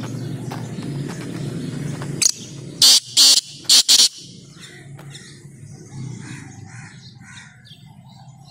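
Black francolin calling: a quick run of about five loud, harsh notes about two seconds in, lasting under two seconds. Faint chirps of small birds and a steady low background noise lie under it.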